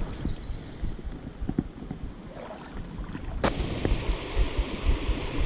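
Wind rumbling on the microphone with a short run of high chirps. A sharp click about three and a half seconds in, then the steady rush of flowing river water.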